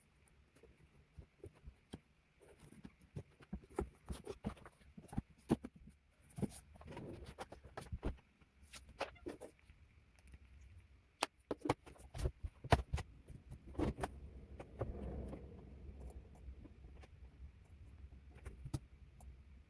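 Faint, irregular taps and clicks with soft rustles: a pen writing on paper and papers being handled at a desk.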